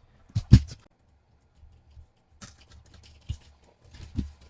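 Light plastic clicks and knocks from handling a mostly 3D-printed SCX24 mini crawler: a sharp double knock about half a second in, then scattered softer clicks and taps.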